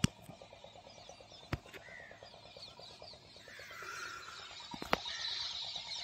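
Birds chirping and calling outdoors, many short chirps and sliding calls overlapping, over a fast, even ticking. A few sharp clicks cut through it, one about a second and a half in and a louder one near the end.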